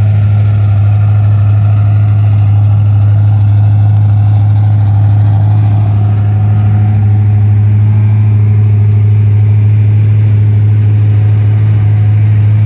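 Bored-out 350 small-block Chevrolet V8 (a 355) in a 1974 Datsun 260Z idling steadily, an even exhaust note that holds the same pitch and level throughout.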